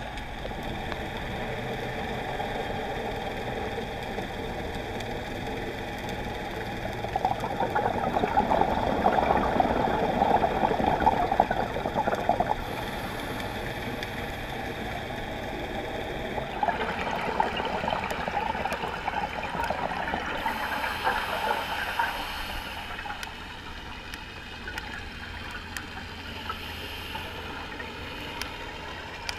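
Underwater scuba sound: bubbling exhalations from a diver's regulator over a steady underwater hiss, growing louder for several seconds about a quarter of the way in and again just past the middle.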